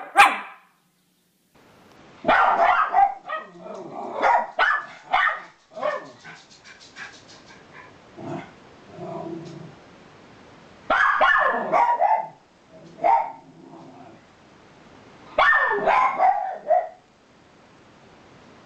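Miniature schnauzer barking in several bursts of quick barks, with quieter stretches between the bursts.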